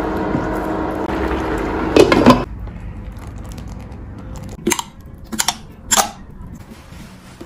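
Silicone spatula stirring sticky tapioca pearls in brown sugar syrup in a nonstick pan, a wet squishing that is loudest about two seconds in and stops shortly after. Then three short, sharp knocks as the pearls are poured from a metal measuring cup into a plastic bottle.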